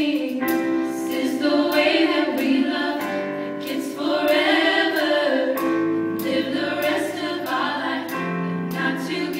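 Show choir of mixed teenage voices singing a slow pop song in harmony, held chords shifting every two to three seconds.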